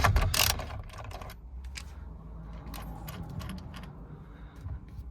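Ratchet wrench with a 19 mm socket clicking as it works on the steering wheel nut: a quick run of louder clicks at the start, then scattered lighter clicks and taps.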